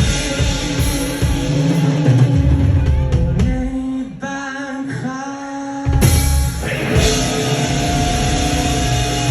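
A rock song with drums and electric guitar. About four seconds in, the drums drop out for roughly two seconds, leaving held notes, and then the full band comes back in.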